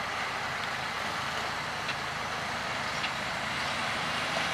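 Heavy truck engine running steadily.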